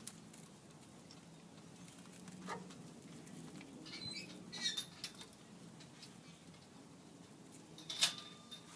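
Faint metallic scraping and a few light clicks as a flathead screwdriver is levered against the brake rotor and caliper to push the caliper piston back in, with sharper clicks near the end.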